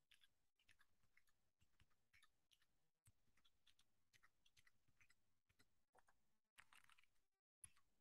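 Typing on a computer keyboard: a quick, uneven run of faint key clicks with a few short pauses.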